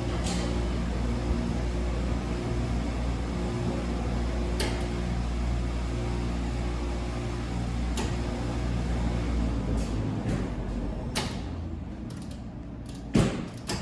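Commercial front-load washing machine running with a steady low hum and a few sharp clicks. The hum drops away about ten seconds in, and a loud knock follows near the end.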